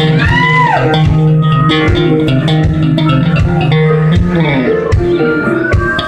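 Live blues band playing an instrumental passage with electric guitar, bass and drums. About half a second in, a high note bends up and falls back.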